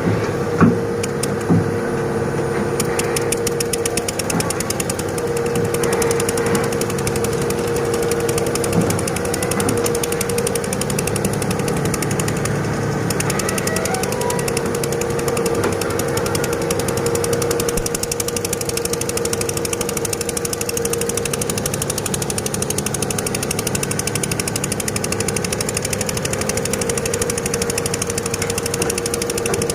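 Excavator engine running steadily with a fast, even rattle. There are a couple of sharp knocks about a second in.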